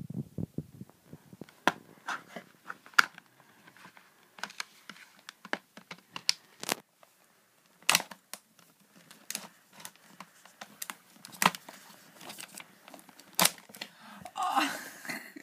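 Knife blade cutting and prying at a cardboard game insert that holds a row of dice: irregular sharp clicks and scrapes, with a short burst of rustling near the end.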